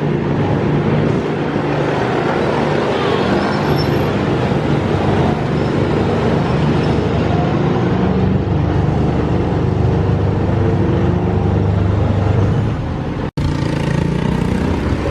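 Train running: a loud, steady engine drone and rumble. About 13 seconds in the sound cuts out for an instant and comes back changed.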